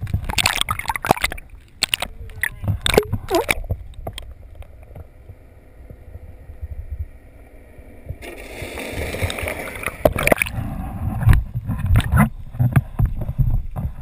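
Water sloshing and splashing around a small boat, with a run of sharp knocks in the first few seconds and a longer splash about two-thirds of the way through.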